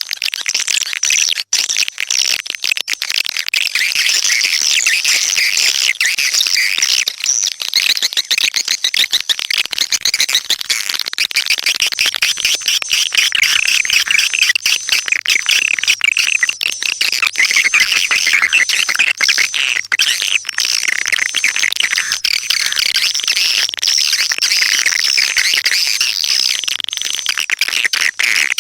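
Swiftlet call track: a dense, unbroken chatter of rapid high chirps from many edible-nest swiftlets. This is the kind of lure call played to draw the birds into a swiftlet nesting house.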